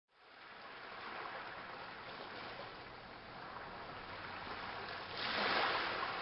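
Sea-water sound effect: a steady wash of waves that fades in at the start and swells into a louder surge about five seconds in.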